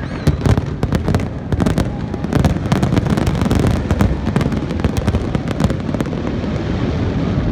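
Aerial fireworks going off: a rapid run of sharp bangs and crackles over a continuous low rumble, thinning out after about six seconds.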